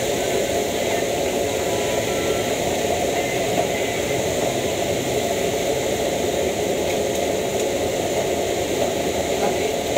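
A high-pressure gas wok burner running steadily at full flame under a wok.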